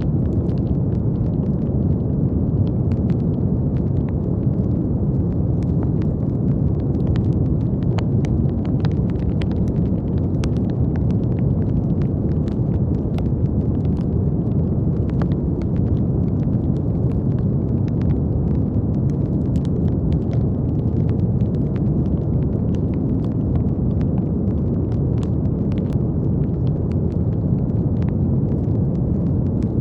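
Steady brown noise: an even, deep rushing hiss with most of its weight in the low end, with faint scattered clicks throughout.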